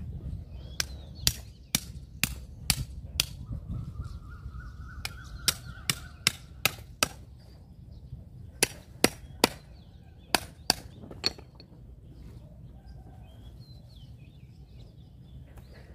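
Sharp knocks of a small hammer striking the back of a knife to drive it through a large striped catfish on a wooden chopping block. The knocks come in three bursts of about six strokes each, roughly two a second.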